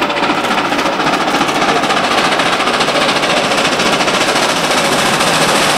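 Nickel Plate Road 765, a Lima-built 2-8-4 Berkshire steam locomotive, working hard with a rapid, steady run of exhaust chuffs that grows slightly louder as it approaches.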